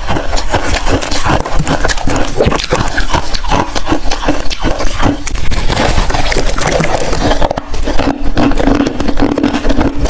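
Close-miked crunching and chewing of hard freezer ice in the mouth, a dense run of irregular loud cracks and crunches with a brief lull about eight seconds in.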